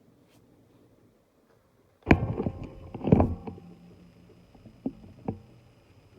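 CEC Georgian ceiling fan running on medium speed on a test rig, almost silent, with only a faint hum. About two seconds in there are two loud knocks about a second apart, then two lighter clicks near the end.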